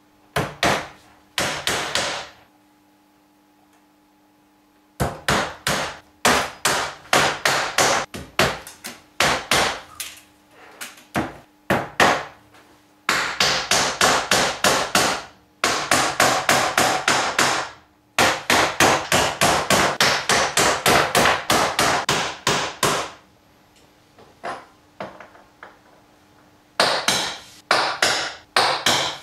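Claw hammer driving nails into wooden cladding boards: runs of quick, evenly spaced blows, several a second, broken by two pauses of a few seconds.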